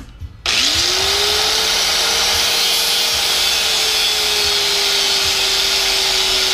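Harbor Freight high-speed rotary tool with a cutoff wheel, switched on about half a second in. Its whine climbs quickly as it spins up, then it runs steadily at high speed, with its pitch sagging slightly later on.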